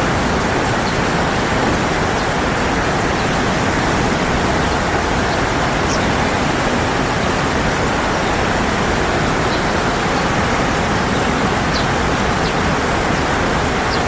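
Steady rush of flowing water, an even, unbroken hiss, with a few faint, very short high ticks over it.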